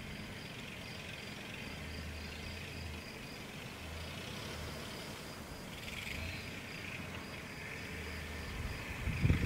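Insects chirping in a fast, even pulse, with a faint low rumble coming and going from the Dacia Duster SUV creeping along a dirt track.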